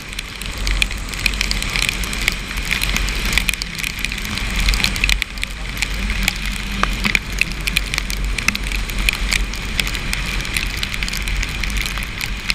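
Heavy rain, with many sharp drops hitting close to the microphone, over a steady low rumble of a motorcycle ride in the downpour.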